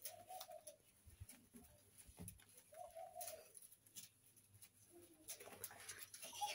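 Faint cooing of a dove: two soft, smooth notes about three seconds apart, over near silence.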